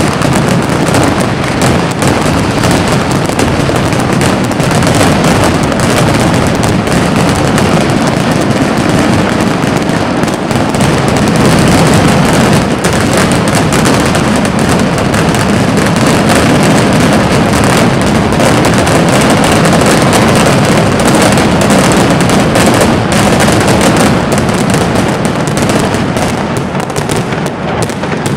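Mascletà firecrackers, both strings of hanging tracas and ground-level batteries, exploding in a dense, unbroken barrage so fast that the bangs run together into one continuous rattle. It is loudest through the middle and eases slightly near the end.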